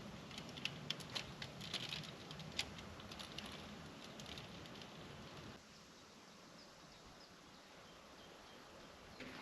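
Light clicks and rustling of close handling over a low rumble; about halfway through this stops, leaving a quiet outdoor background with a few faint, short bird chirps.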